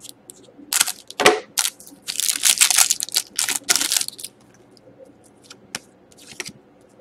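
Scissors cutting open a foil trading-card pack, then the foil wrapper crinkling loudly as the cards are pulled out. For the last few seconds there are only soft clicks and rustles of the cards being handled.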